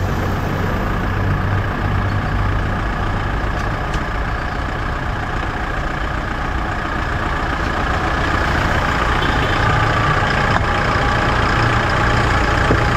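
Kia Bongo III 4x4's turbo-diesel engine idling steadily, growing a little louder in the second half.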